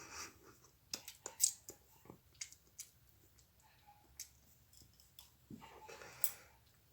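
Small handling noises: a run of sharp clicks and rustles in the first few seconds, then a breathy rush lasting about a second near the end.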